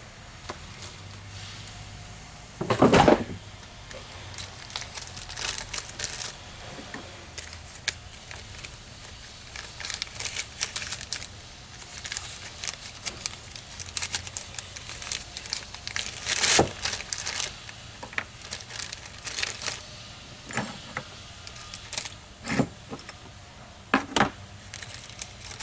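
Small metal engine parts clinking and a plastic bag crinkling as the parts are bagged, with scattered clicks and knocks of handled parts and tools and a louder knock about three seconds in.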